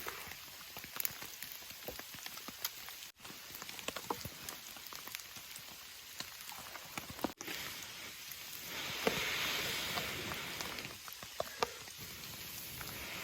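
Steady rain falling, with individual drops ticking sharply now and then; the hiss swells louder for a couple of seconds from about eight and a half seconds in.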